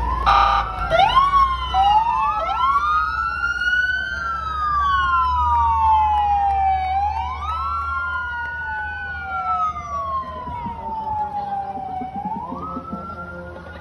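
Police vehicle sirens wailing: two sirens rise and fall slowly in pitch, out of step with each other, growing fainter near the end. A short horn blast sounds just at the start.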